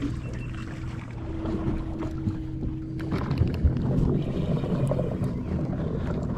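A small fishing boat sitting on open water, with wind on the microphone and a steady low hum. A clearer tone in the hum stops about three seconds in, and a busier rumble of water and handling noise follows.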